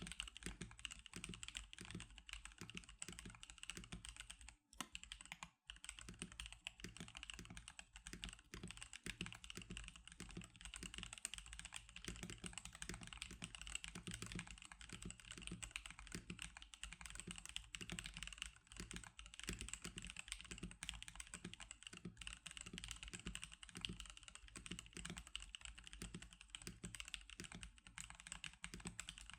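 Steady fast typing on an NK87 mechanical keyboard with Magic Girl keycaps: a dense, continuous stream of key presses, with a short pause about five seconds in.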